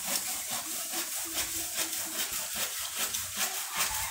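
Leafy branches of a kamini (orange jasmine) tree rustling and scraping in an irregular run as they are cut back by hand.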